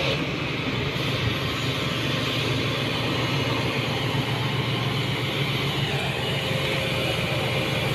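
Kobelco SK200 excavator's diesel engine running steadily, a constant low drone.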